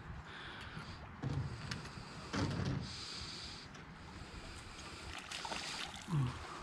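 A hooked chain pickerel splashing and thrashing at the water's surface as it is played in close to the bank. The splashes come in a few irregular surges.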